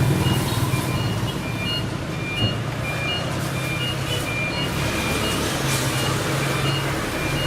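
Mini refrigerator running after its refrigerant recharge, a steady low hum from the compressor, with many short high-pitched beeps or chirps at two pitches coming irregularly over it.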